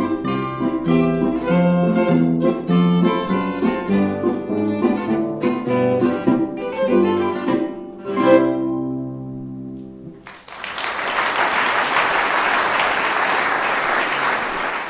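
Violin, zither and harp trio playing the closing bars of a Boarischer folk dance tune, ending on a final chord that rings out. About ten seconds in, audience applause starts and carries on steadily.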